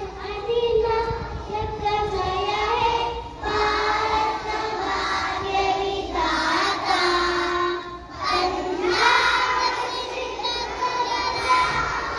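Young girls singing a song into a microphone, in held notes, with short breaks between phrases about three seconds in and again about eight seconds in.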